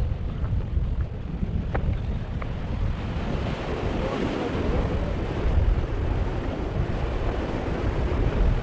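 Wind buffeting the microphone over sea surf washing against rocks, with one wave swelling louder in the middle. A couple of faint clicks about two seconds in.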